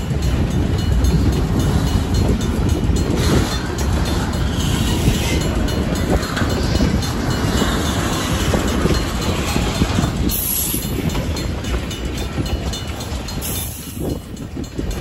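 Freight cars of a passing train, covered hoppers then tank cars, rolling by with a steady heavy rumble and the clatter of their wheels over the rail joints.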